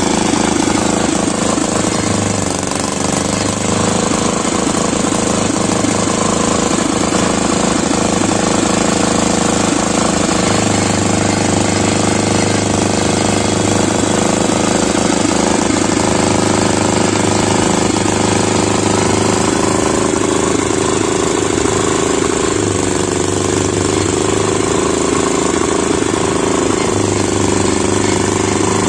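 Small engine running steadily with a rapid knocking beat, driving a belt-driven roller sugarcane crusher as cane stalks are fed through the rollers.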